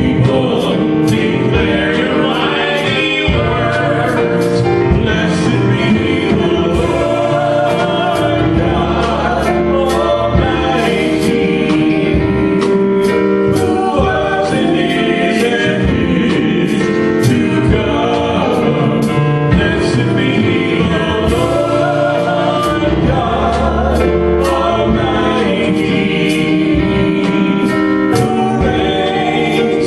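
Gospel-style worship song: a group of singers over a band, with a steady beat.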